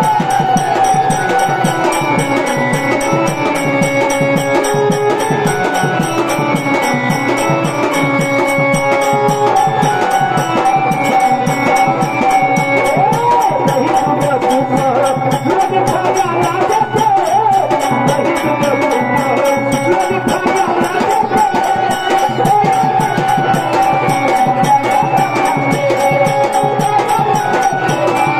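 Devotional folk music: a fast, steady beat of percussion with jingling, rattling metal over a wavering melody, without a break.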